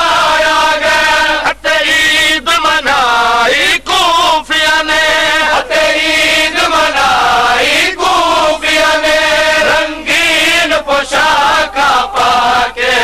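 Male voices chanting a noha, a Shia lament, in a loud, rhythmic recitation whose sung lines are broken by short pauses.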